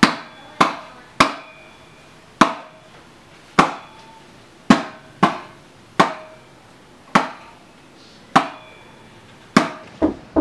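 A drum struck in a slow, uneven beat, one sharp ringing stroke about every second, sometimes two in quick succession, beating time for a dance. Near the end come a few quick knocks on a wooden door.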